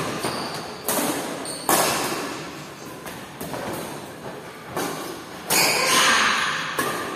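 Badminton rackets striking a shuttlecock in a doubles rally: sharp hits about once a second, each ringing on in the echo of a large hall.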